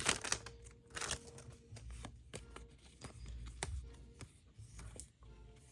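Disney Lorcana trading cards being handled and flipped through by hand: quiet, scattered soft clicks and rustles of card sliding against card.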